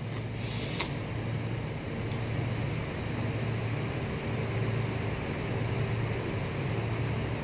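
Outdoor air-conditioning unit running with a steady low hum, just after switching on. A light click sounds just under a second in.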